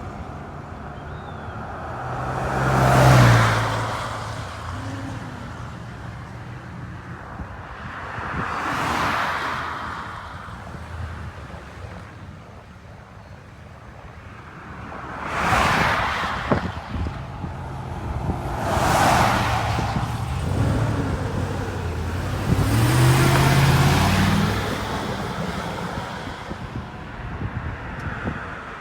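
Cars passing by on a road one after another, about five passes, each swelling up and fading away with tyre and engine noise.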